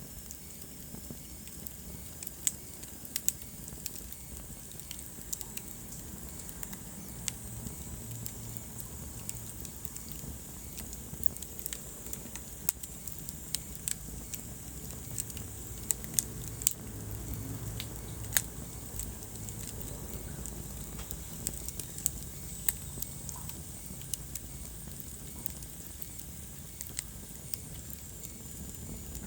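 Wood fire in a fireplace crackling, with sharp irregular pops and snaps over a low steady rumble of the flames.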